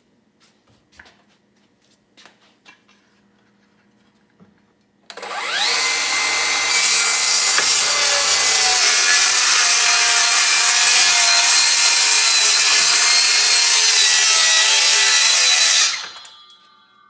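Milwaukee M18 Fuel 7-1/4" brushless cordless circular saw starting up about five seconds in, spinning up and then cutting through 3/4-inch plywood for about ten seconds at a steady high pitch. It stops shortly before the end, after a few faint clicks at the start.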